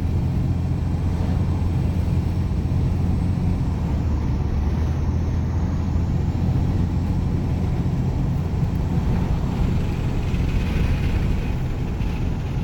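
Inside the cab of a Dodge Ram 2500's 5.9 Cummins turbo-diesel pickup at road speed with the windows down: heavy wind noise and low engine and road rumble, steady throughout. The wind is too strong for the faint whistle he is chasing to come through, with only a faint high steady tone above it.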